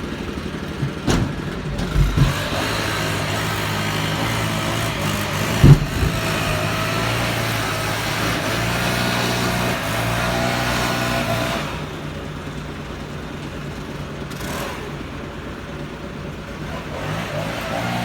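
An engine running, its note rising about two seconds in, dropping lower a little after halfway and picking up again near the end, with a few sharp knocks in the first six seconds.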